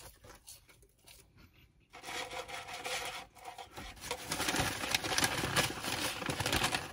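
Rustling and scraping noise close to the microphone from handling and eating a fast-food burger, starting about two seconds in and growing louder.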